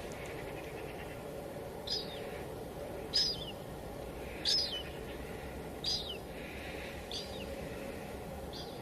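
Steady drizzle on a window pane, with a bird repeating a short, high call about every second and a half, six times.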